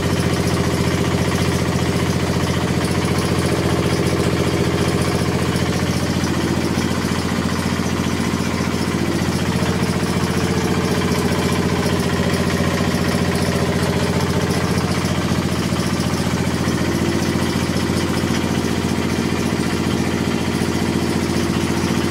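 Yanmar TF 95 single-cylinder horizontal diesel engine running steadily with an even firing beat.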